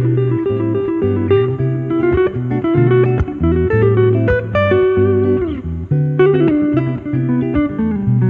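Background music: an instrumental led by plucked guitar over held low bass notes, with a sliding, falling phrase about five seconds in.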